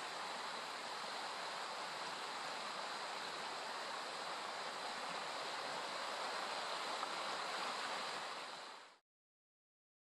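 Small rocky stream rushing and splashing over stones, a steady rush of water that stops abruptly near the end.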